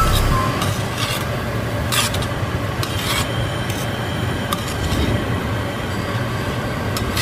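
Chopped onions sizzling in a stainless steel skillet while tongs stir them and scrape against the pan, with a few light clicks of the tongs on the metal.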